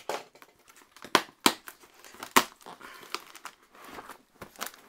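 Clear plastic packing tape crackling and tearing as a cardboard box's cut flaps are pulled open, with several sharp snaps and knocks of the cardboard.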